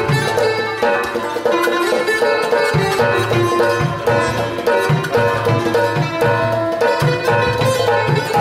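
Instrumental Pashto folk music: plucked lutes, a rabab and a long-necked lute, play a melody over hand percussion on a clay pot and drum, with low drum strokes repeating through it.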